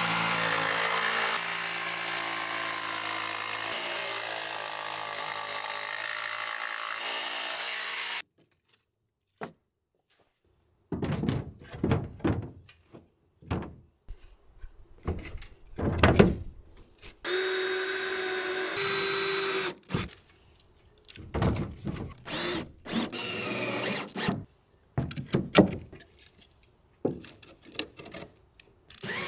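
Jigsaw with a coarse wood blade cutting an unedged board, running steadily for about eight seconds with its pitch sagging slightly under load. After a sudden break, a string of knocks and taps, a power drill running for about two seconds, then more short tool runs and knocks.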